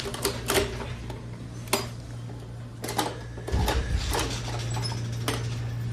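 Mechanism of a coin-operated toy vending machine being worked: irregular metallic clicks and clacks, with a heavier low thump about three and a half seconds in, over a steady electrical hum.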